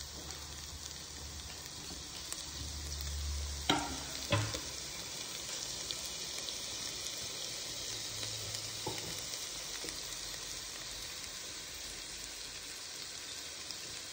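Chicken fried rice mixture of vegetables, chicken and egg frying in a pan: a steady sizzle as it is stirred, with two short knocks about four seconds in.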